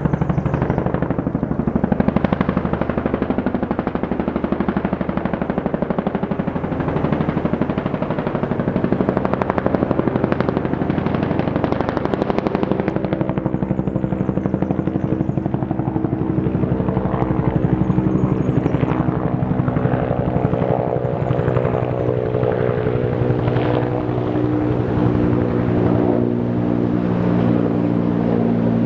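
Helicopter running continuously, its rotor blades beating in a rapid, even chop over engine noise. From about halfway through, a steady droning tone with several pitches grows stronger beneath the chop.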